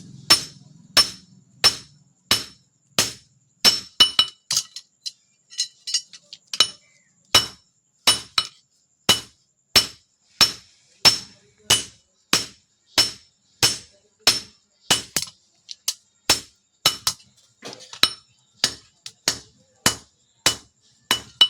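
Blacksmith's hand hammer striking steel on an anvil in a steady rhythm of about one and a half blows a second, each blow ringing. There are a few lighter, quicker taps about five seconds in.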